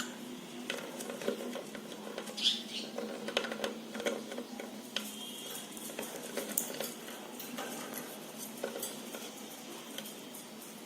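Cockatiels moving about a nest box and cage: scattered light clicks, taps and scrapes of claws and beaks, with a few short high chirps, over a steady low hum.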